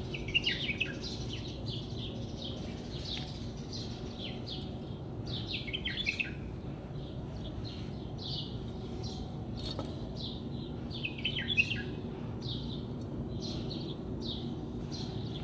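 Small birds chirping: many short, high calls, with a faint steady low hum underneath.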